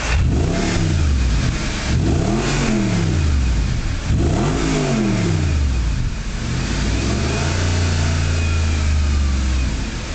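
Audi R8's 4.2-litre V8 on its original factory exhaust, blipped three times from idle with the car standing still, then held at raised revs for a few seconds before dropping back near the end.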